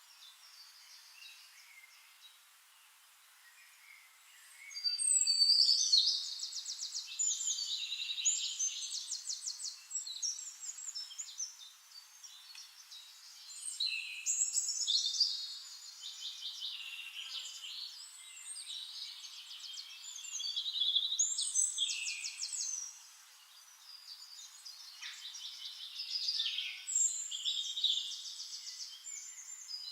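Songbirds singing high, fast trilled and warbled phrases that come in loud spells of several seconds, about four in all, after a quieter first few seconds.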